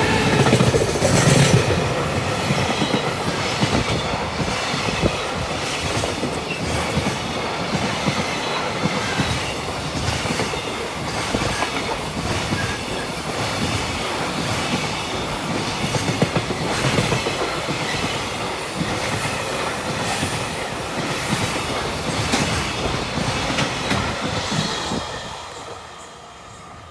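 Freight train hauled by an EF210 electric locomotive passing close by, loudest at the very start, then a long run of wagon wheels clattering over rail joints. The sound falls away about 25 seconds in as the end of the train passes.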